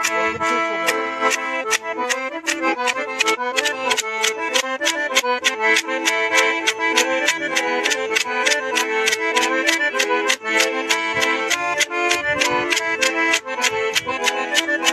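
Piano accordion played solo: a fast tune of quick, evenly spaced notes, about four a second, over held chords.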